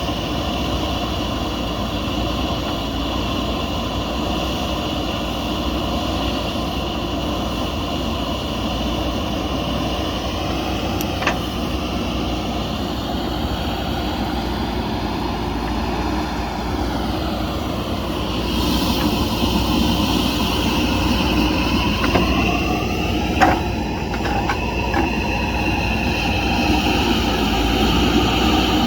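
JCB backhoe loader's diesel engine running steadily as the machine works, with a sharp knock about a third of the way in and another near the end, and the engine's pitch shifting in the second half.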